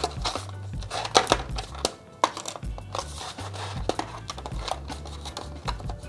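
Background music with a steady low bass line, over scattered short clicks and knocks of the earphones being handled and lifted out of their box packaging.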